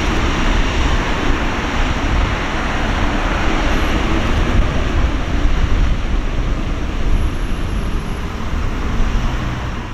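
Steady, loud rumble of a Boeing 777-300ER's GE90 jet engines as the airliner lands.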